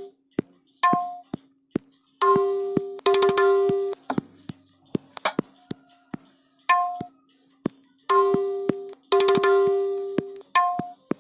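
Tabla samples played from a mobile Octapad app, struck one at a time in an irregular pattern: some strokes ring with a clear pitch and die away over about a second, others are short dry taps. A faint steady hum lies underneath.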